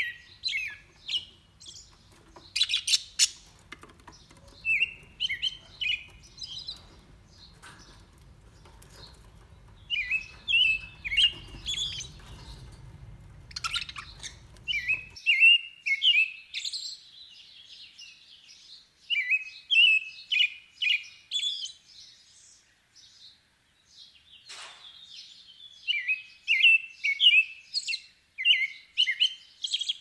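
Budgerigars chirping and warbling in quick runs of short, high chirps, with a few sharp clicks about three seconds in.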